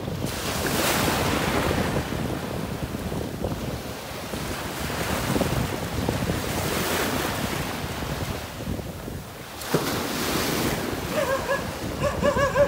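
Sea waves breaking and washing over rocks and sand, surging in swells about a second in, around seven seconds and again around ten seconds, with wind buffeting the microphone.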